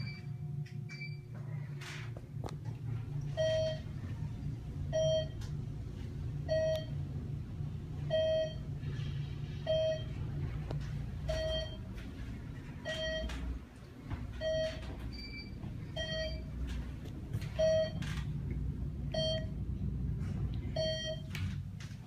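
Dover traction elevator car descending, its floor-passing signal giving one short beep each time the car passes a floor, about every second and a half, over the steady low hum of the moving car. Two higher beeps sound in the first second.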